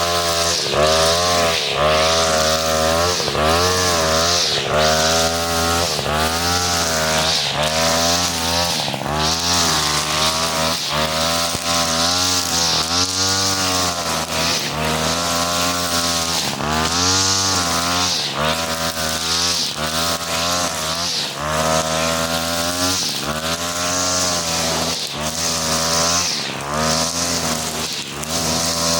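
A 43cc two-stroke brush cutter with a four-strand 2.5 mm nylon trimmer head, running under load while cutting grass. Its engine pitch rises and dips again every second or so as the line meets the grass.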